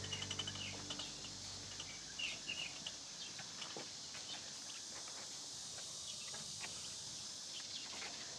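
Outdoor ambience with a few short bird chirps, mostly near the start and again about two and a half seconds in, over a steady high hiss and scattered soft ticks. Background music fades out in the first second or so.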